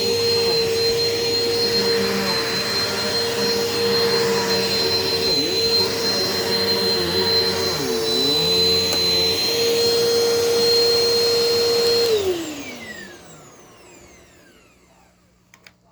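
Eureka PowerSpeed upright vacuum cleaner's 8-amp motor running with a steady high whine, its pitch dipping briefly twice. About 12 seconds in it is switched off and the whine falls in pitch and fades as the motor spins down.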